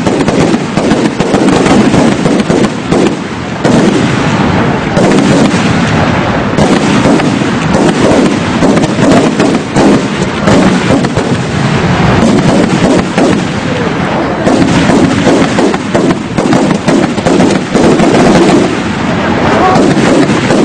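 Fireworks going off in a dense, continuous barrage of rapid bangs and crackles, loud throughout with no pauses.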